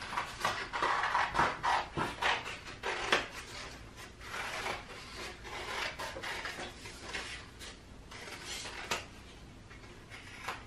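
Scissors cutting through a folded sheet of paper in a quick run of short snips, with the paper rustling as it is turned; the snips thin out near the end.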